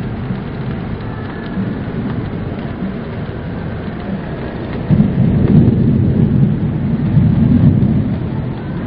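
Steady rain with a low thunder rumble that swells about five seconds in and lasts about three seconds.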